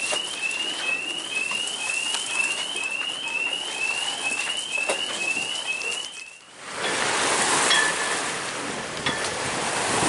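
A moored boat's motion-detector alarm sounding a rising electronic chirp over and over, about twice a second, set off by the surge rocking the boat. After a fade at about six and a half seconds, wind and water rush past a yacht under way at sea.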